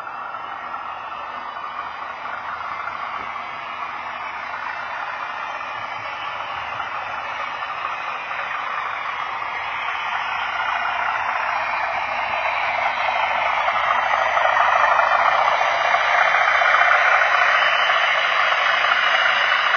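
Model railway train, a diesel locomotive hauling Pullman carriages, running along the track with a steady rolling whirr and rattle of wheels on rail that grows louder as it approaches and comes past.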